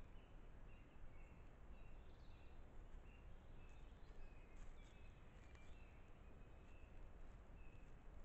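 Near silence of woodland with a low steady hiss, and a faint bird calling a short high note over and over, about twice a second.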